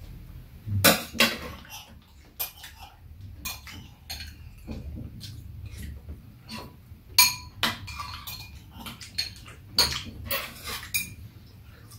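Metal spoons and chopsticks clinking and scraping against ceramic bowls while eating porridge: irregular sharp clinks, a few of them ringing briefly, the loudest about a second in and again past the middle.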